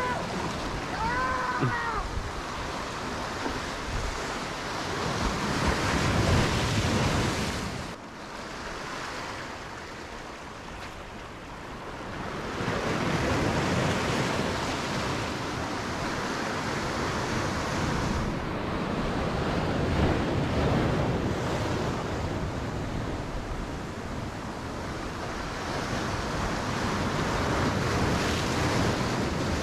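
Sea waves surging and breaking on the rocks of a breakwater, swelling and fading every several seconds, with wind buffeting the microphone. Near the start there are two short squeaky calls.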